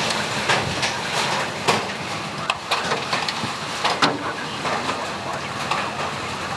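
Large hail, baseball-sized, striking the stopped van's body and windows from inside the cabin, in scattered sharp bangs over a steady rush of wind and rain.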